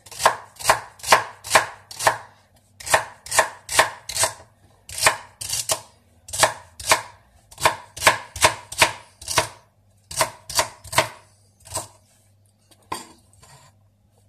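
Kitchen knife chopping celery on a wooden cutting board in steady strokes, about two or three a second. The strokes thin out and stop about twelve seconds in, with a few faint taps after.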